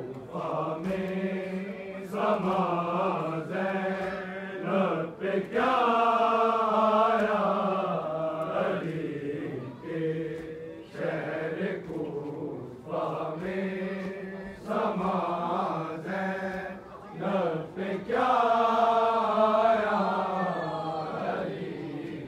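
Men's voices chanting a Shia mourning lament (noha) together in long, drawn-out phrases over a low sustained drone, with short sharp strikes between the phrases.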